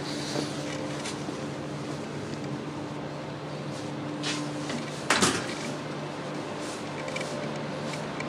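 Steady hum of an accelerator hall with a couple of low steady tones, one of which stops just before a loud clunk about five seconds in; a sharp knock sounds right at the start.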